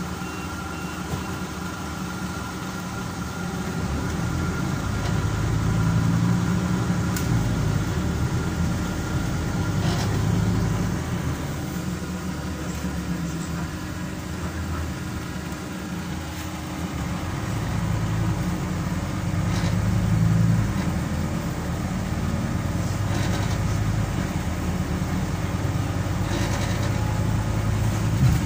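Scania CN270UB city bus's diesel engine heard from inside the passenger cabin, running steadily and swelling louder several times as the bus pulls and then eases off. A few short knocks or rattles from the body sound along the way.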